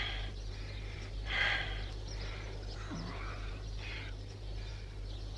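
A man breathing hard in short, breathy gasps, with a brief low grunt about three seconds in, from the exertion of digging and filling a hole by hand.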